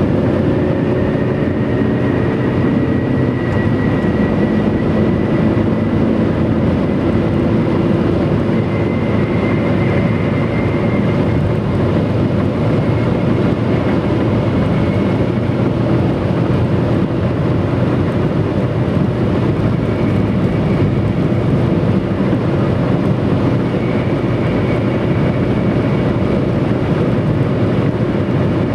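Stock Bridgestone Turanza tyres on a Mitsubishi Lancer 9 whistling on the motorway surface: a thin high tone, rather like a jet plane, that rises slightly in the first few seconds and then fades in and out. Under it runs a steady rush of road noise.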